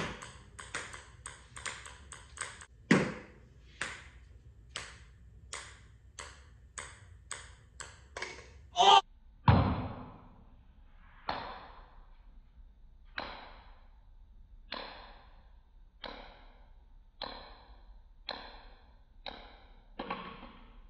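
Small plastic ball, likely a ping-pong ball, bouncing on a concrete floor: a long run of light, sharp clicks, roughly one every half second to second, with two heavier thuds about 3 and 9.5 seconds in.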